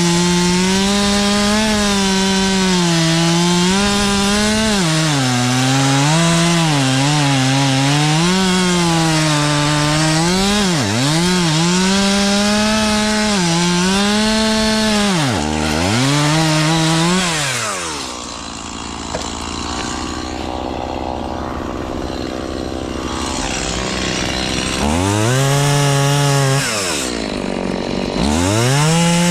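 Chainsaw cutting wood, its engine pitch wavering and dipping as the chain takes the load. About two-thirds of the way through it drops to a lower, quieter idle, then revs back up near the end.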